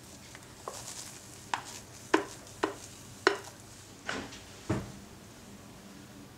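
A utensil scraping and knocking against a mixing bowl of genoise batter: about seven short, sharp strokes in quick succession, each a quick swish falling in pitch, as the last of the batter is scraped out.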